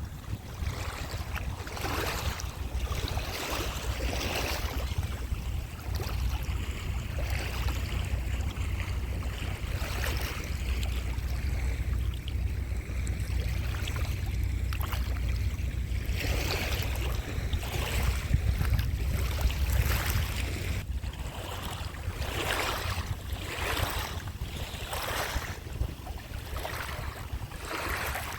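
Sea surf: waves breaking and washing in, heard as repeated hissing rushes every second or two, over a steady low rumble of wind on the microphone.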